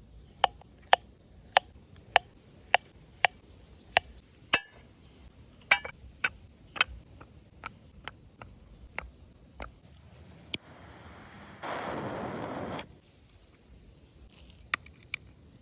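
Sharp knocks or chops, about two a second for the first several seconds, then fewer and more irregular, over a steady high buzz of insects. About twelve seconds in, a noisy rush lasts about a second.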